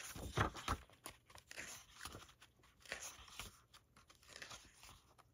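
Paper pages of a Blu-ray mediabook's bound booklet being turned and handled: a run of irregular paper rustles and flicks.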